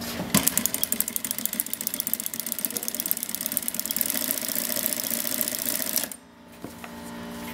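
Industrial single-needle sewing machine with a ruffler attachment stitching and pleating fabric at speed: a fast, even clatter of stitches. It stops abruptly about six seconds in, leaving a quieter steady hum.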